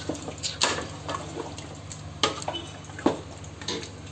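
Wooden spoon stirring a thick, wet meat-and-offal curry in a large aluminium pot: wet squelching with several sharp knocks of the spoon against the pot. A steady low hum runs underneath.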